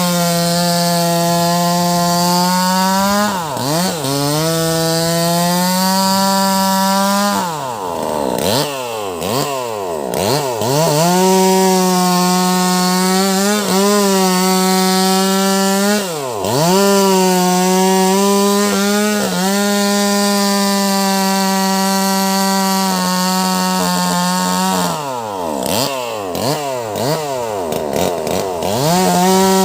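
Wagner 580 two-stroke chainsaw with a 16-inch bar running at high revs while cutting a large log. The engine speed dips and recovers several times, with clusters of quick dips near the middle and towards the end.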